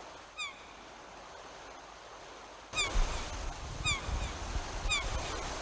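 Seagulls calling over the wash of the sea: four short calls, each falling in pitch, with the surf growing louder about three seconds in.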